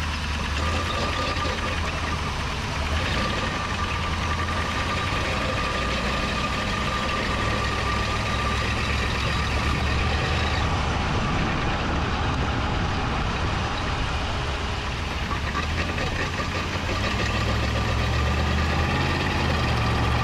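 Road and drivetrain noise heard from under the front end of a 2006 Jeep Commander on the move: a low rumble and tyre hiss with a steady high-pitched tone running through it. This is the front-end noise that new struts, wheel bearings and CV axles did not cure, which a shop diagnosed as a worn ring and pinion bearing in the front differential.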